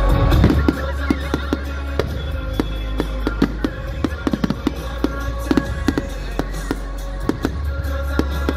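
Fireworks crackling and popping in quick, irregular succession over a song with a steady bass.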